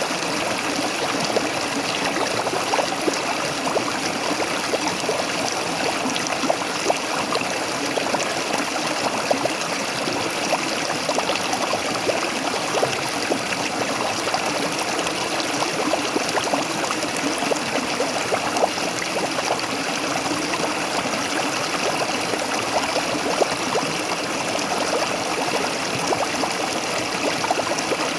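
Small waterfall: water splashing and trickling steadily, a constant rush dotted with many small splashes.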